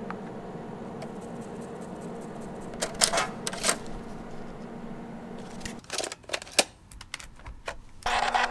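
Floppy disk handling on an Agilent 4395A network analyzer: two loud clacks about three seconds in as the disk is ejected from the built-in drive, over the instrument's steady hum. Then an external USB floppy drive gives a run of mechanical clicks, and a steady whirring starts near the end as it spins the disk to read it.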